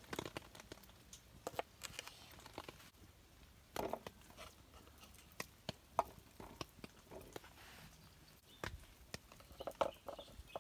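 Scattered light knocks and clicks at an irregular pace, a few a second, with a slightly louder knock about six seconds in.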